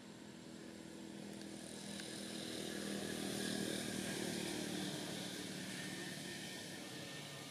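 A passing engine: a steady drone that swells to a peak about halfway through and then fades away.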